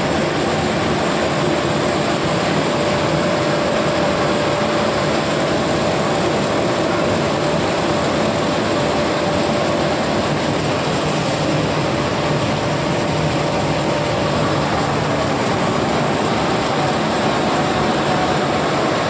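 Machinery of a soya chunk production plant running: a steady, loud mechanical drone with a faint steady whine, no starts or stops.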